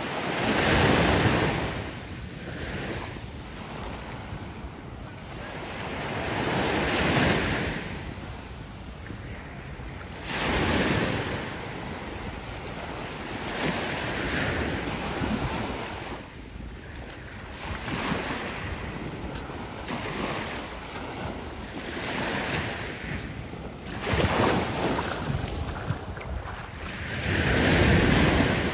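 Small sea waves breaking and washing up a sandy shore. The surf swells and falls back every three to four seconds.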